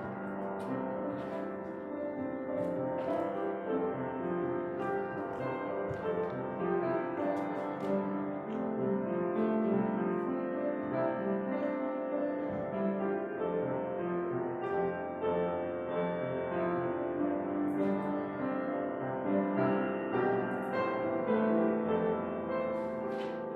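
Slow piano music.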